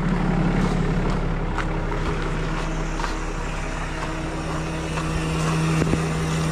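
Vehicle engine idling steadily, with a few faint clicks and knocks over it.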